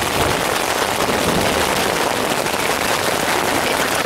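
Hail and rain hitting the tent's fabric in a dense, steady crackle.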